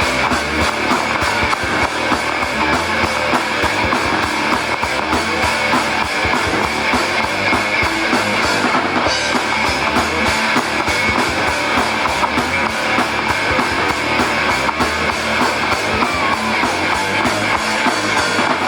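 Live band playing loud rock on guitar and drum kit, dense and unbroken.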